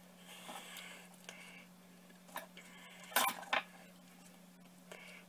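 Metal forks clinking and scraping as tender slow-cooked chicken breast is pulled off the bone on a paper plate: a few sharp clicks, the loudest about three seconds in.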